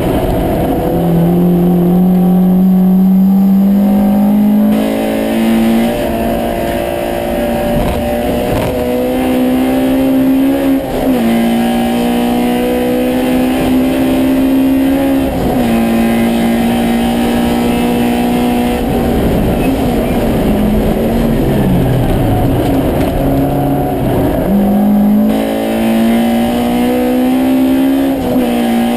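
Honda Civic race car's four-cylinder engine heard from inside the stripped cabin under hard driving: its pitch climbs steadily and drops back sharply at each gear change, and falls away for a few seconds about two-thirds through as the car slows, before climbing again.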